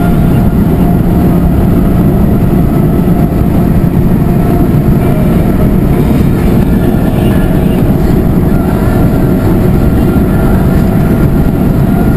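Cabin noise of a Subaru Vivio kei car held flat out near its top speed: the small 658 cc four-cylinder engine running at high revs under a loud, steady wash of wind and road noise while the car slowly gains speed.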